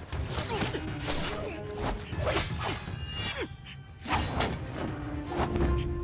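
Dramatic film score over a quick run of sound effects: sharp hits, whooshes and thuds, as in a staged scuffle or arrest.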